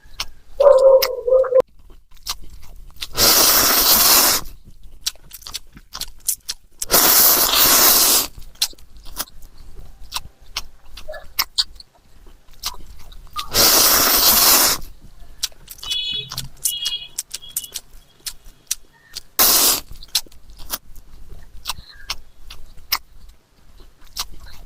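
Close-up eating sounds of a mukbang: noodles slurped in four noisy pulls, three long and one short near the end, with chewing clicks and smacks between them.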